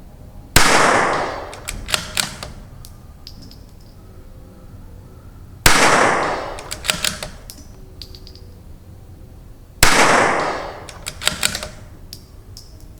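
CZ 457 bolt-action .22 LR rifle firing three shots about four to five seconds apart. About a second after each shot comes a quick run of sharp clicks as the bolt is worked to eject the case and chamber the next round.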